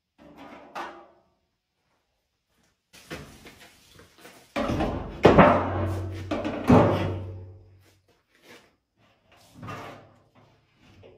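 Metal clanks and knocks of a transfer pump and its hose being handled and set on a steel 55-gallon drum. The sharpest knocks come in the middle, each leaving the drum ringing with a low tone that fades over a few seconds.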